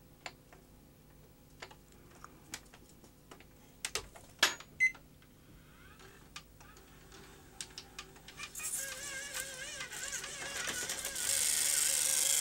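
Small clicks of a metal tool and mechanism parts on a VHS tape deck, then, about eight seconds in, the deck's motors start with a wavering whine and a hiss that grows louder as the reels spin while it tries to eject the tape. The deck is suspected of a split loading-motor coupling.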